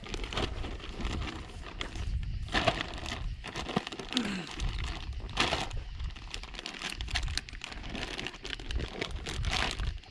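Clear plastic weigh-in bag crinkling and rustling irregularly as it is handled and bass are put into it.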